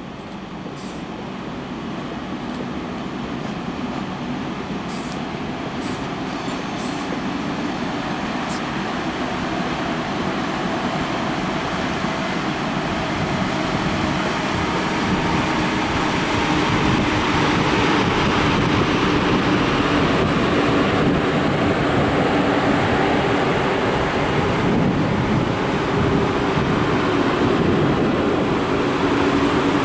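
ChS7 two-section DC electric locomotive pulling a passenger train out of the station, with a steady rumble and low hum that grow louder over the first half and then hold as the coaches roll past on the rails. A few sharp clicks come in the first several seconds.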